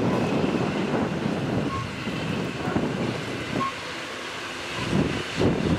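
EN57 electric multiple unit passing by, a steady rumble of wheels on the rails that eases a little partway through. A cluster of sharp clacks comes near the end.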